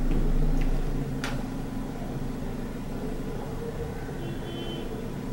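Steady low mechanical hum of background machinery, with one sharp click just over a second in.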